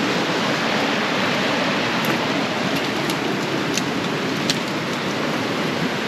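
Waterfall: a steady rush of falling water, with a few faint high clicks about midway.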